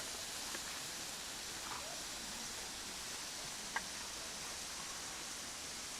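Steady rushing hiss of a waterfall, with a single sharp click a little under four seconds in.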